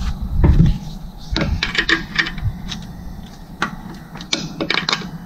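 Irregular metallic clicks and clinks of a wrench working in the engine bay, tightening a newly fitted cooling fan sensor.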